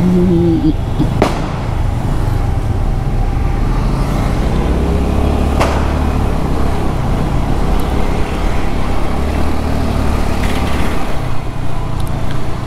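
Motor-vehicle traffic heard from a moving scooter: a steady low road rumble with engines of passing cars and other vehicles.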